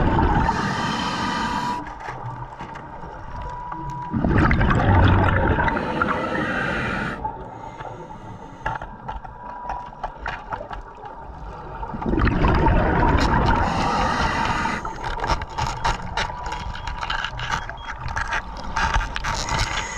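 Scuba diver breathing through a regulator underwater: every few seconds a long surge of bubbles with a low rumble, then quieter hissing stretches between breaths. A faint steady tone runs underneath.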